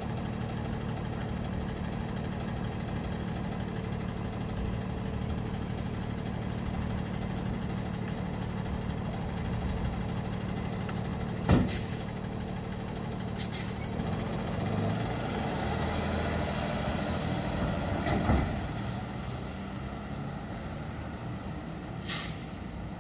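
Freightliner M2 garbage truck's diesel engine idling steadily, with a sharp clack about halfway through and a second one a couple of seconds later. The engine then picks up as the truck pulls away, with a knock partway through.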